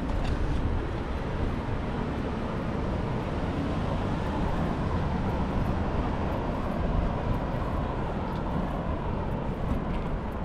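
Steady wind rumble on the microphone during a bicycle ride, mixed with road and traffic noise.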